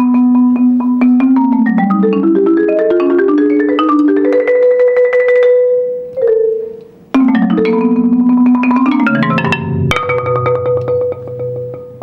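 Marimba played with mallets: quick runs of struck notes climb to a held note about five seconds in, then fade into a short pause. The playing resumes about a second later and ends on low held notes that fade away near the end.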